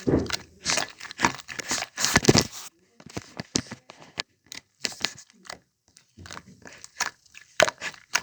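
Slime being worked by hand, making irregular sticky pops and crackles. They come thick and fast for the first couple of seconds, then more sparsely.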